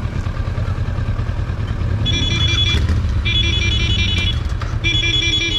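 A motorcycle engine running with a steady low rumble. About two seconds in, an electronic ringtone-like melody starts and repeats in three short bursts.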